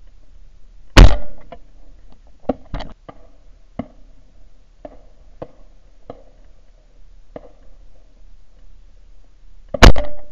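Shotgun firing steel-shot duck cartridges: two loud shots, one about a second in and one near the end, with several fainter sharp cracks and knocks between them.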